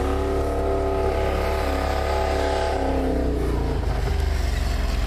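Jeep Grand Cherokee ZJ engine running at raised revs, freshly caught after a long hard start. Its note drops lower about three and a half seconds in.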